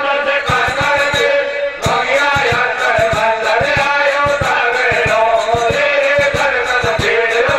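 Male voices singing a Meena pad folk song in a chanting style, with a steady drum beat underneath.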